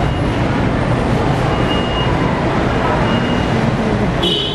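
Steady rumbling background noise with faint indistinct voices under it, and a brief high-pitched chirp near the end.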